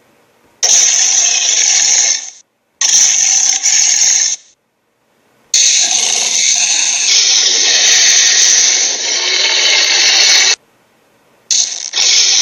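Loud, harsh noisy sound effects in four bursts of about one to five seconds each, every burst starting and stopping abruptly with silence between.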